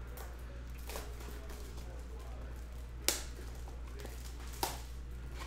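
Hands handling trading cards and peeling cellophane shrink-wrap off a cardboard hobby box, with three sharp crackles, the loudest about three seconds in, over a steady low hum.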